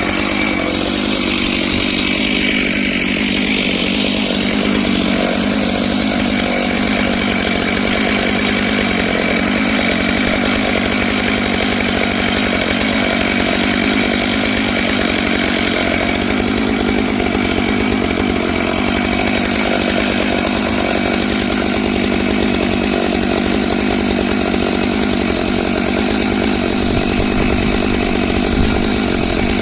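Stihl MS 661 two-stroke chainsaw running at full throttle with a ripping chain, cutting lengthwise through a pine log in a chainsaw mill. Its pitch dips briefly about two to three seconds in, then holds steady.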